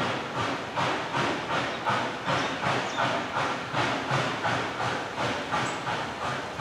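Southern 630, a 2-8-0 steam locomotive, working under steam: its exhaust chuffs in an even, quick rhythm of about three beats a second.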